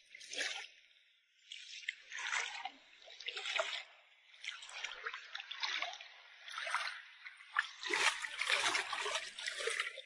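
Shallow seawater sloshing and splashing in a series of swishes about a second apart, as a person moves through it. Near the end a hand plunges into the water, giving the loudest splashing.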